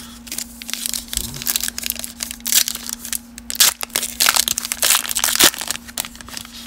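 Foil wrapper of a Donruss baseball card pack being crinkled and torn open, then the cards pulled out of it: a dense crackling rustle, loudest in the middle and easing off near the end.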